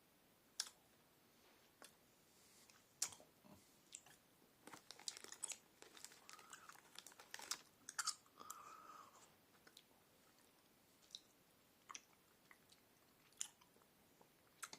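Faint close-up chewing of a soft sugar-coated gummy candy, a pineapple Sour Patch Kid, with irregular wet mouth clicks that bunch together in the middle and thin out towards the end.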